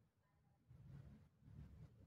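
Near silence: faint low room tone that swells and fades.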